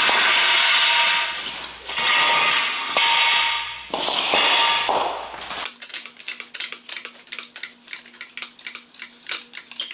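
A steel jack stand and wooden blocks being dragged and shifted on a concrete shop floor: four scrapes about a second long with a faint metallic ring. From about halfway through, quick light clicks and taps take over.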